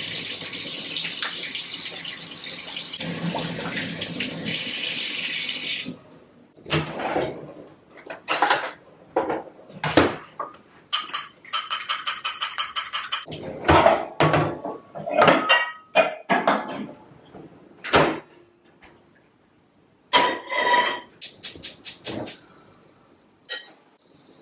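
Kitchen faucet running into a sink for about six seconds, then shut off. Then a run of clinks and knocks of a utensil against a small bowl, with two quick runs of rapid tapping strokes, one about halfway through and one near the end.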